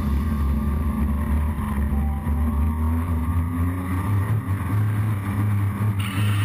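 Blade 350 QX quadcopter's motors and propellers buzzing steadily in flight, heard close up, the pitch stepping up about four seconds in.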